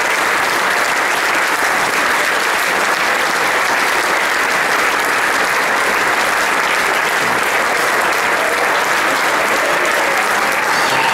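Large crowd applauding steadily, a long unbroken round of clapping.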